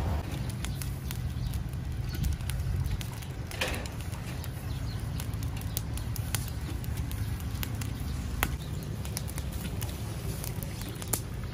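Charcoal grill under rotisserie chickens crackling, with scattered sharp pops and ticks over a steady low rumble.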